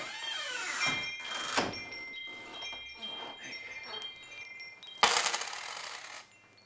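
A metal wind chime hanging by the door rings with several clear tones that slowly die away. About five seconds in, a handful of coins is dropped onto a counter with a loud, bright clatter.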